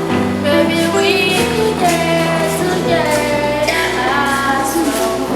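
Music: a voice singing a slow, gliding melody over held keyboard chords.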